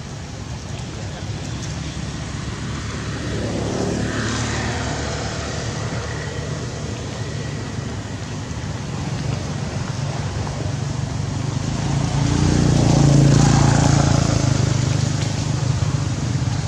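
Motor vehicles passing, their engine and road noise swelling and fading twice, the second pass louder.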